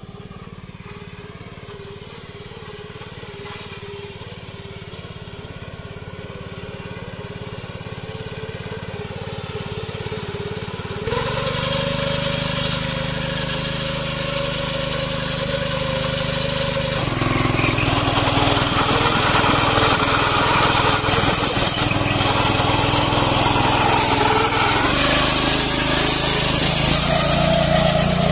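Yavuz 300 two-wheel tiller engine running steadily while it pulls a trailer loaded with logs, growing louder as it comes closer.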